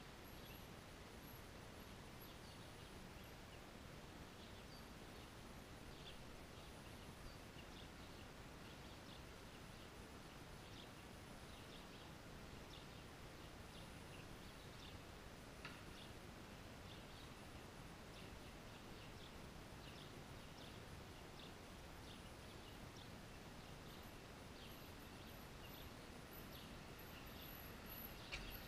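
Near silence: faint outdoor background noise with sparse, short high chirps scattered through it.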